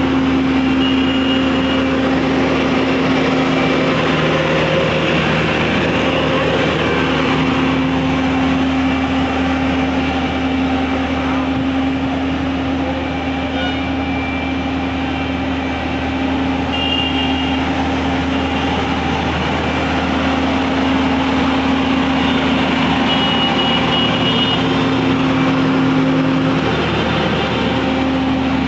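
Road roller's engine running steadily, a constant drone over a low hum with mechanical noise throughout.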